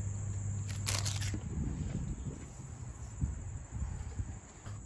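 Handling of a plastic parts bag and a small adhesive-backed plate: a short crinkling rustle about a second in, then faint small taps and handling sounds. A low hum underneath stops about a second and a half in.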